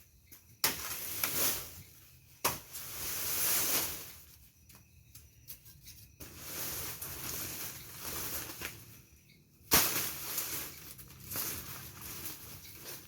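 Dry branches and firewood being handled and piled: bursts of rustling, several beginning with a sharp knock, the loudest near ten seconds in.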